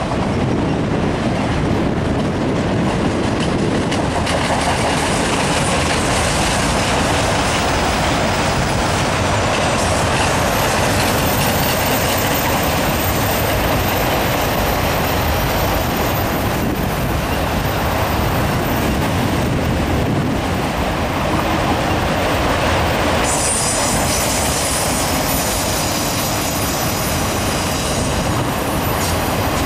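Freight train of autorack cars rolling past at steady speed: a continuous, loud rumble and clatter of steel wheels on the rails. A thin high wheel squeal comes in about a third of the way through, and a stronger squeal of several high tones starts suddenly later on.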